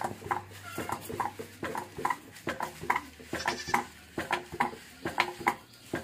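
A wooden dhenki, the foot-operated rice-pounding lever, working in a steady rhythm: repeated knocks about two a second, each with a short creak, as soaked rice is pounded into flour.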